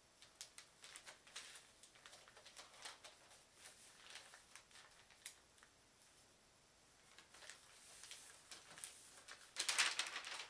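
Thin washi wrapping paper being handled: soft rustles and small crisp ticks as pleats are pressed and folded flat by hand, then a louder, longer rustle near the end as the sheet is lifted.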